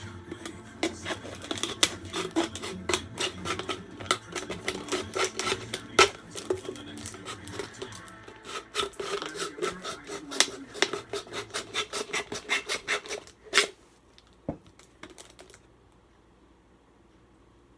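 A plastic drink bottle being sawn through with a pocket knife: quick repeated cutting strokes that stop about fourteen seconds in, followed by a few fainter scrapes.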